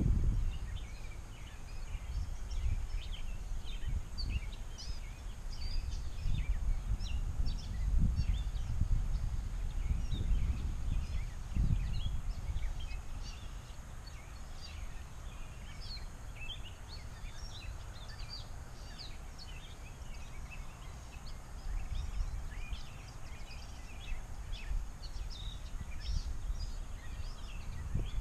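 Many birds chirping and singing in short scattered notes, over a low rumble of wind buffeting the microphone in gusts.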